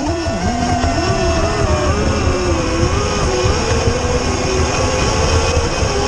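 Brushless electric RC speedboat running on the water, its motor whine wavering up and down in pitch.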